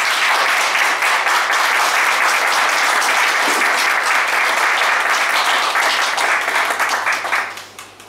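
Audience applauding, a steady dense clapping that dies away near the end.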